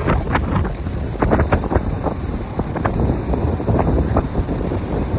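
Strong wind buffeting the microphone in irregular gusts, over the rush of storm-surge surf washing up the beach.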